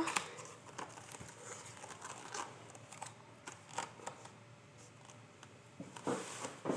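Paper being handled against a book: soft scattered rustles and light clicks, with a louder rustle near the end.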